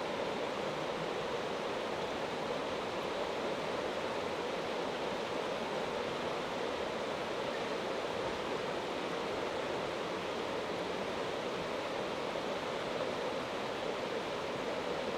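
Mountain river murmuring: a steady, even rush of flowing water with no break.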